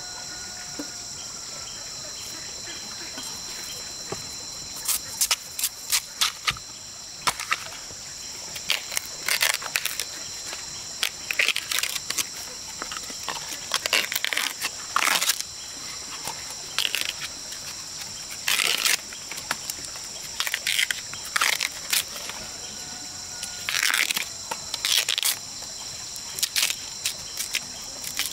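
Husks being torn and stripped off fresh bamboo shoots by hand: irregular short, crisp tearing and snapping sounds, in clusters. Under them, a steady high drone of insects.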